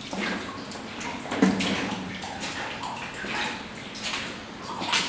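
Footsteps splashing through shallow standing water on the floor of a rock mine tunnel, in irregular steps, the loudest about a second and a half in.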